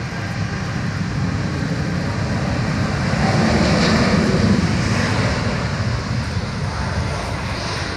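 Boeing 747 freighter's four jet engines running at takeoff power during the takeoff roll, a steady roar that grows louder as the plane passes about four seconds in, then eases off.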